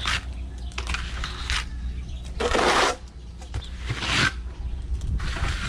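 Several short scraping strokes, a trowel working cement onto a wall, with a few small clicks in between; the loudest stroke comes about halfway through.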